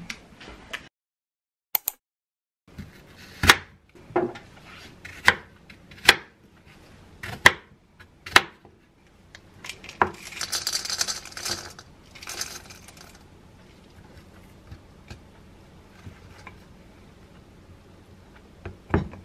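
Kitchen clatter: a series of sharp knocks as containers and a bowl are set down on a wooden cutting board, then cacao granola poured from a glass jar into a wooden bowl with a rattling hiss lasting about two seconds. After that come faint ticks of a wooden spoon in a tub of Greek yogurt, and one more knock near the end.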